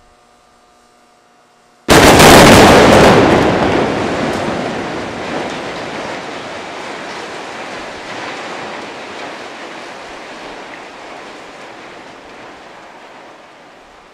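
Explosive demolition charges bringing down two tower cranes: a sudden loud blast about two seconds in, then a long rumble that slowly fades.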